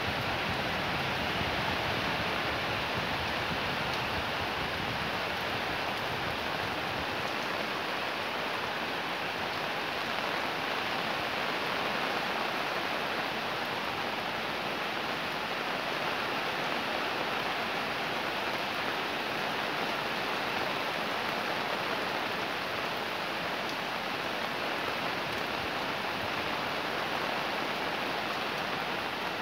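Fairly heavy rain falling steadily, an even unbroken wash of noise with no let-up.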